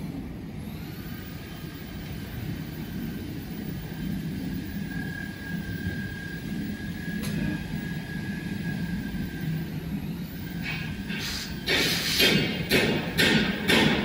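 Fiber laser cutting machine running: a steady low hum with a thin high whine as the cutting head moves. Near the end it gives way to a run of loud hissing bursts, about two a second.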